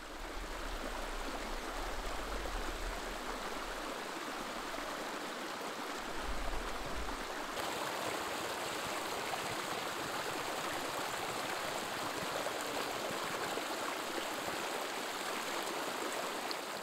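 Small mountain stream rushing steadily over rocks in a shallow cascade.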